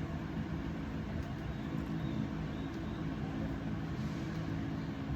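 Steady low rumble with a faint hum, even in level, with no distinct knocks or changes.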